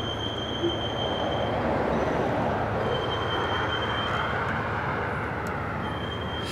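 Door intercom sounding a high electronic call tone in repeated stretches of one to two seconds while someone waits to be let in, over steady street noise that swells about halfway through.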